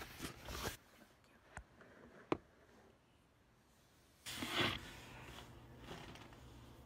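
Handling noise from a phone held close to its microphone as it is moved and set down. There are a few sharp taps and knocks in the first two and a half seconds, then a short rustling burst about four seconds in.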